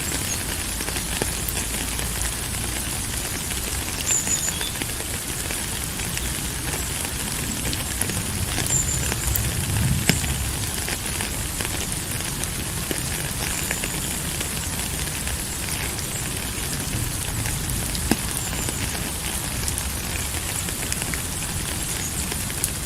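Steady rain falling, a constant hiss dotted with many small drop ticks, with a low rumble swelling about ten seconds in. A few faint, short high chirps come through now and then.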